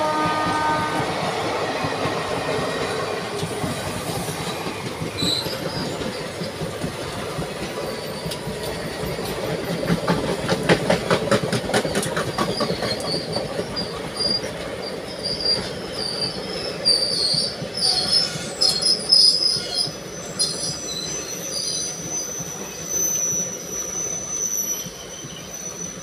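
A locomotive horn cuts off about a second in, then Indian Railways ICF passenger coaches of an express run past with a steady rolling rumble. Around the middle the wheels click rhythmically over rail joints, and through the second half high-pitched wheel squeals come and go.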